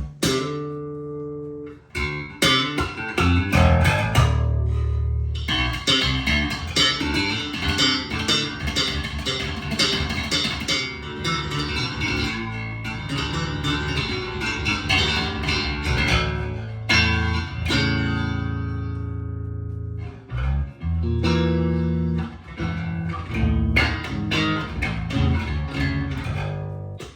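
Fodera Emperor II Elite electric bass played solo in several phrases with short pauses, mixing held low notes with quick runs of sharp, bright attacks: a crisp tone.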